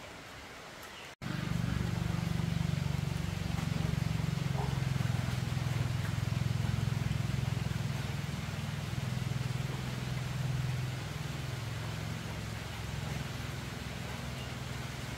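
An engine running steadily with a low, even hum, starting abruptly about a second in.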